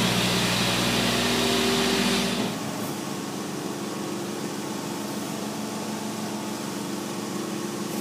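Steady hum of a running machine motor, with a hiss above it; about two and a half seconds in it drops to a quieter, lower hum.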